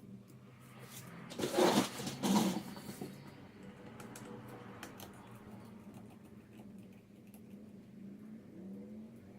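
Light clicks and taps from handling small laptop parts and tools, with two short, louder scraping or rustling noises about two seconds in, over a faint low hum.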